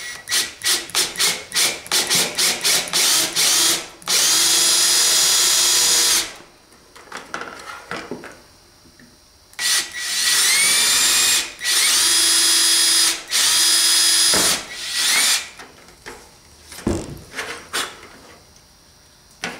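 Cordless drill boring a hole through a plastic model roof panel. It starts with a rapid string of short trigger pulses, about four a second, then runs steadily for about two seconds. After a pause come several longer runs, each rising in pitch as the motor spins up.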